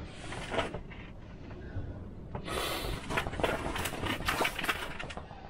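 Rustling and handling noises, with a louder run of rustles and clicks about halfway through, over a steady low rumble of wind.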